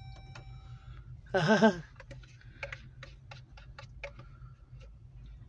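Raindrops ticking on the car's windshield and roof, scattered sharp clicks, over a low steady hum. A person utters one short loud word about a second and a half in, and a short faint tone sounds at the very start.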